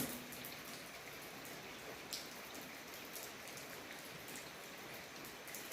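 Rain falling steadily, faint and even, with scattered drops ticking on a surface. A short knock sounds at the very start.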